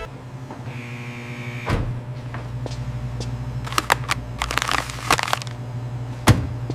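Factory machinery running with a steady low hum, a high whine for about a second near the start, and a series of sharp clicks and knocks, with the loudest knock near the end.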